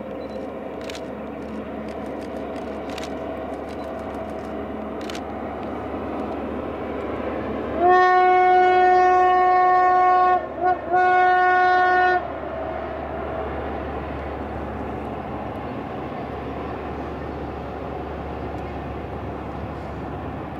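Freight train hauled by two diesel locomotives, its engines and wagons giving a steady drone. About eight seconds in, a locomotive horn sounds loudly for about four seconds, with two quick breaks near its end.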